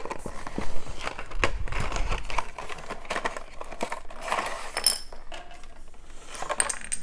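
A miniatures box and its plastic sprue being handled: irregular clicks and taps of plastic and card, with bursts of rustling.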